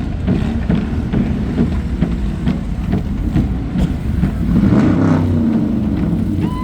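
Motor vehicle engine running, revving up briefly about five seconds in.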